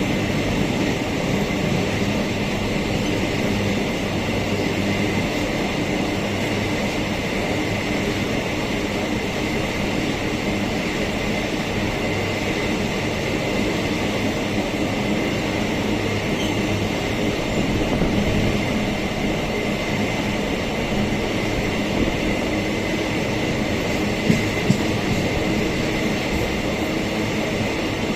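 Empty iron ore freight train rolling steadily past with a continuous rumble, with two sharp clacks a moment apart near the end.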